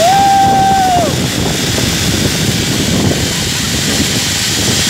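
Wind rushing hard over the camera's microphone during a face-down zipline ride. At the start a rider lets out a held high cry that drops off after about a second.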